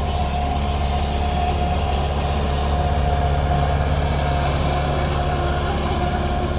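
Vehicle engine running steadily, a continuous low rumble with a constant whine over it.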